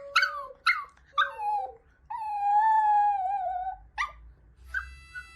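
A dog whining in a few short high yelps, then one long drawn-out howling cry lasting nearly two seconds.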